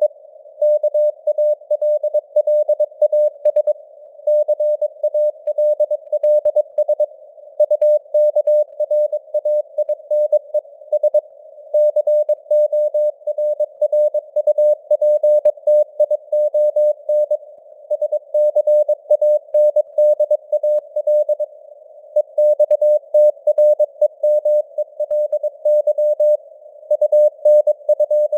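Morse code (CW) sent at 22 words per minute: a single steady mid-pitched tone keyed on and off in quick dots and dashes, over a narrow band of hiss that mimics radio noise. The signal strength rises and falls slightly, simulating QSB fading.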